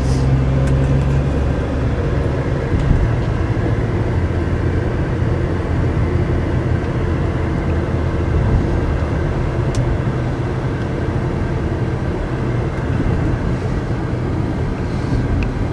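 Cabin sound of a 2009 Chevy Malibu LTZ being driven: its V6 engine and the road noise make a steady low rumble, with the engine's hum clearer at first and blending into the road rumble after a couple of seconds. A single faint click about ten seconds in.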